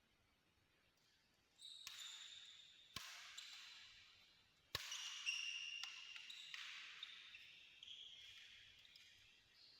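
Faint sharp clinks or pings, about four of them, each ringing with a few high tones that fade away over a second or two.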